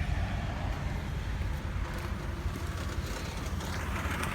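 Minivan running: a steady low rumble of engine and road noise.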